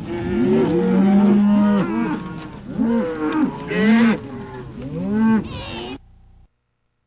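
Several cattle mooing at once in overlapping calls, a recorded sound effect; the mooing cuts off abruptly about six seconds in.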